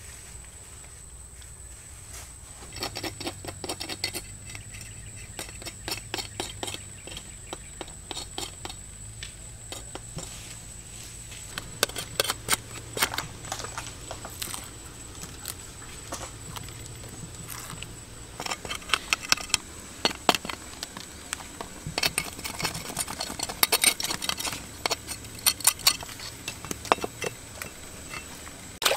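Irregular runs of light, sharp clicks and clatters of hard objects knocking together, starting about three seconds in and coming thickest in the second half.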